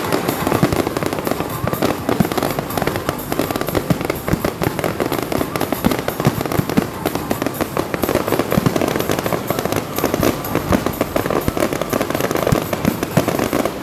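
Aerial fireworks going off in a rapid, dense barrage of bangs and crackling pops, with no gap between bursts.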